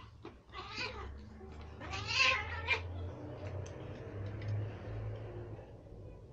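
Two house cats squabbling, with a few short, harsh cat cries in the first two and a half seconds, after which it grows quieter.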